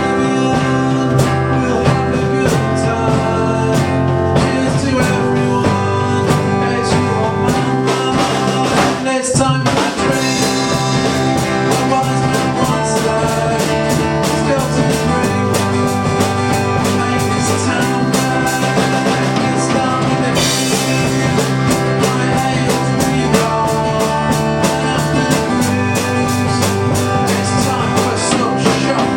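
Three-piece rock band playing live: drum kit, bass guitar and guitar together with a steady beat, with a brief drop in the playing about nine seconds in.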